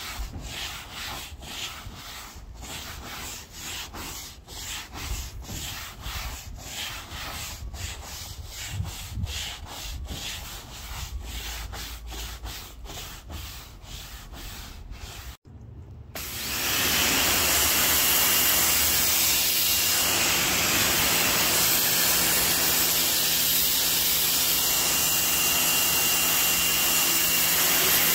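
Stiff-bristled brush on a long pole scrubbing a wet, soapy vehicle roof in steady back-and-forth strokes, about two a second. About fifteen seconds in, it cuts to a pressure washer running and spraying, a louder steady hiss with a motor hum beneath it.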